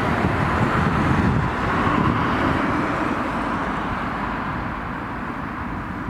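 Road traffic noise: a steady rush of passing vehicles, a little louder about a second or two in and easing slightly toward the end.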